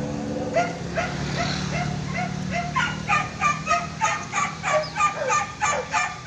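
Hunting dogs yelping and barking in rapid succession, about three calls a second, growing denser and louder about halfway through: dogs giving cry while chasing wild boar. A low steady hum fades out under the first half.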